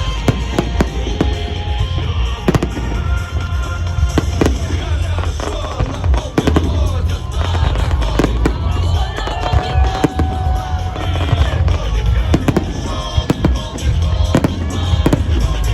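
Festive fireworks salute: many shells bursting in quick, irregular succession over a steady low rumble, with music playing alongside.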